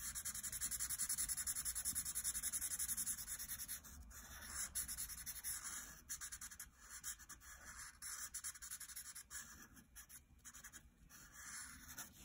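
Black Sharpie marker scribbling back and forth on paper to fill in a solid black area. Quick, even strokes, about eight a second, for the first few seconds, then slower, scattered strokes with short pauses.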